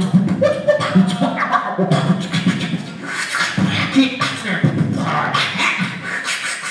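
Beatboxing: a vocal percussionist imitating a drum kit with the mouth, low kick-like thumps under sharp clicks and hissy hi-hat sounds in a fast, steady rhythm.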